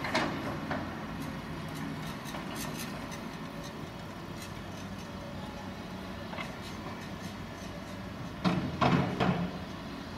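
Cat crawler excavator's diesel engine running steadily while it digs, with a cluster of several loud knocks from the working machine about eight and a half seconds in.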